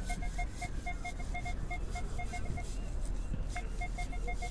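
Minelab Equinox metal detector giving rapid, irregular short beeps, all at the same mid pitch, as its coil is swept over the grass, with a pause of about a second past the middle.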